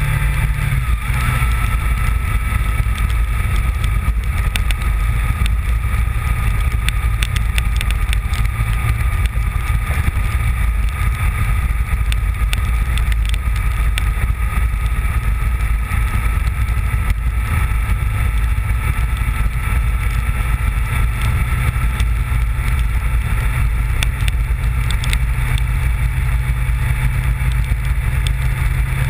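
Honda VFR750's V4 engine running steadily at road speed, with wind rush and scattered light ticks; the engine note drops lower about a second in.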